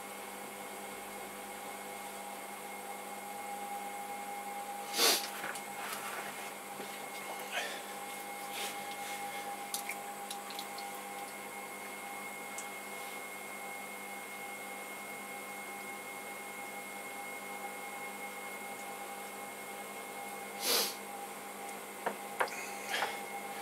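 Electric potter's wheel spinning, its motor giving a steady whine over a soft hiss. Two short, sharp rushes of noise come about five seconds in and again near the end, with a few light clicks just before the end.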